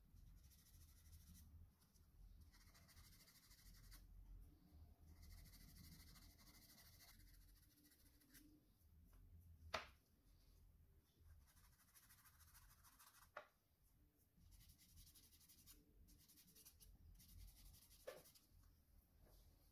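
Faint, scratchy rubbing of a sanding sponge on small resin figure parts, in stretches, with three light clicks spread through.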